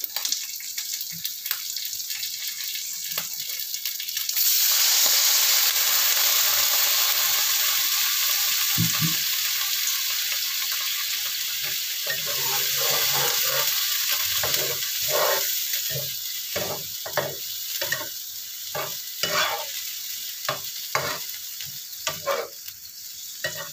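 Frying sizzle and stirring at first. About four seconds in, water poured into the hot, oily frying pan sets off a sudden loud hiss that slowly dies down. In the second half a metal spatula stirs and scrapes the pan with repeated short clacks.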